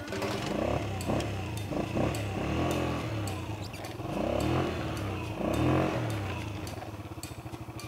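Small ATV engine revving up and down repeatedly as it is ridden, with scattered clicks and knocks.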